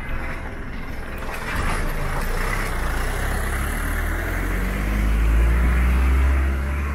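Road traffic with a small cargo truck's engine running close by, its low rumble swelling to the loudest about five seconds in before easing.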